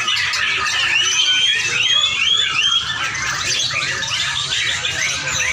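Lovebirds chattering in a continuous stream of rapid, high chirps and squeaks, a little louder in the first three seconds.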